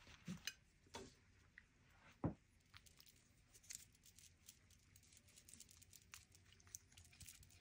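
Faint clicks and light scraping of a wooden stir stick mixing orange paint in a glass bowl, with one sharper knock about two seconds in.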